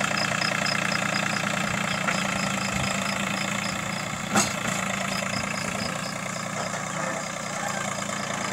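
John Deere 3028 EN mini tractor's 28 hp three-cylinder diesel engine running steadily under load as it hauls a trailer loaded with firewood. A single sharp knock sounds about four seconds in.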